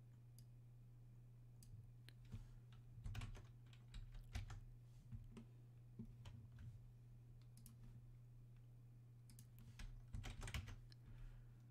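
Faint clicking of a computer keyboard and mouse, in two short flurries, a few seconds in and again near the end, over a low steady hum.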